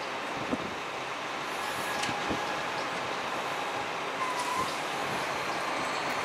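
Wind buffeting the microphone over the steady, distant noise of a diesel-hauled passenger train moving away.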